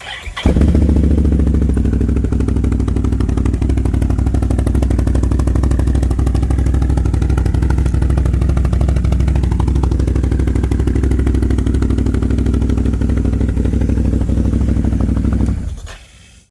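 Can-Am Renegade ATV engine running steadily at idle through its exhaust. It cuts in suddenly just after the start and drops away about a second before the end.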